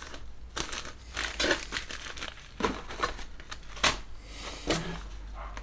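Clear plastic parts bags crinkling as they are handled and rummaged through, in short irregular rustles.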